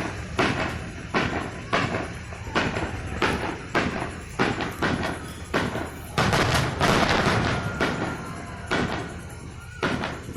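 Fireworks bursting one after another, about one or two booms a second, with a dense rolling volley of overlapping bursts in the middle.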